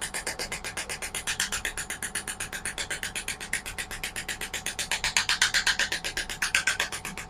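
Radial shockwave therapy handpiece firing rapidly, an even stream of clicks at about ten pulses a second, with music playing behind it.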